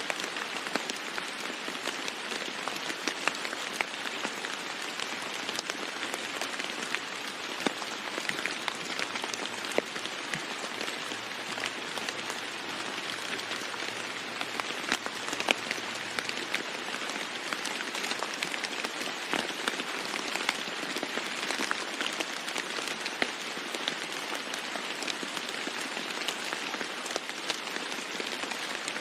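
Steady rain falling on a roof: an even hiss dotted with many sharp individual drop hits.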